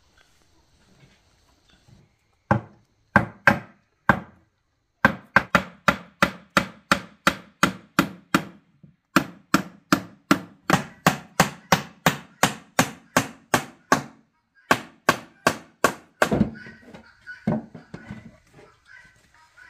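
Hammer driving nails into wooden boards, in quick runs of about three blows a second broken by short pauses. Near the end the blows stop and the boards are shifted and scraped against each other.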